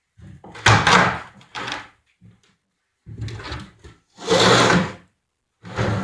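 Metal clamps being worked off a glued-up panel of wooden fence pickets: a series of about five separate sliding, knocking bursts, the longest lasting most of a second.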